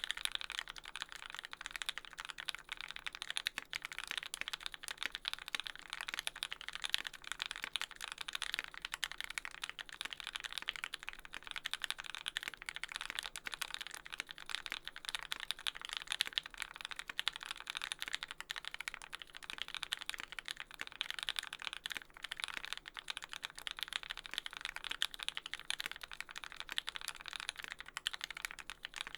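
Fast, continuous typing on a Percent Studio Canoe mechanical keyboard: lubed TealiosV2 linear switches with Cherry top housings on an aluminium plate, with GMK keycaps and no dampening, key presses running together in a dense clatter.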